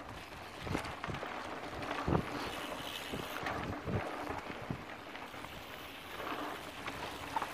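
Wind rushing over the microphone as a mountain bike rolls downhill on a dirt trail, with a few dull knocks from the bike jolting over bumps.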